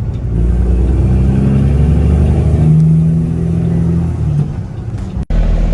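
Semi truck's Cummins ISX diesel engine running under way, heard from the cab: a steady, loud drone whose pitch shifts up and down as it pulls. The sound cuts out for an instant near the end.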